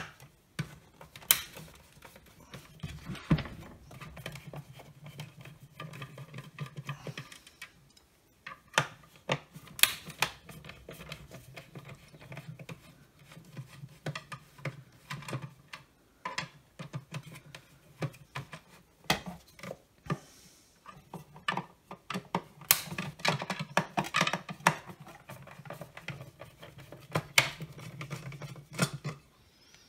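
Small Torx screwdriver turning screws out of a plastic vacuum housing: a dense run of small clicks and scraping in three long stretches, with a few sharper knocks in between as tools and parts are handled.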